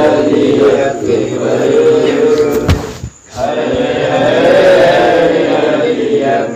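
A large crowd of male Shia mourners chanting a noha together, many voices at once. It breaks off briefly about halfway, just after a sharp knock, then resumes.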